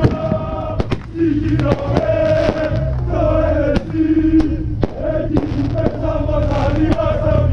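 Crowd of football supporters chanting in unison, with many sharp firecracker bangs going off through the chant.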